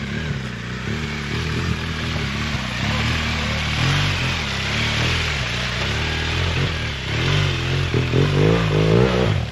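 BMW GS Adventure motorcycle's boxer-twin engine revving up and down as it rides through a muddy puddle, with water splashing under the tyres around the middle. The revs rise and fall more sharply near the end as it pulls away up the rutted track.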